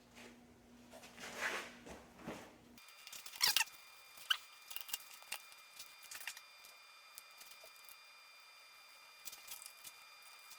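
Scattered sharp clicks and light scraping of small hard parts being handled and fitted by hand, over a faint steady hum that cuts off about three seconds in.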